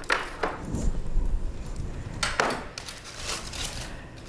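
A metal spatula and a metal baking pan clattering in a few separate knocks, then aluminium foil crinkling as the spatula is worked under the baked salmon.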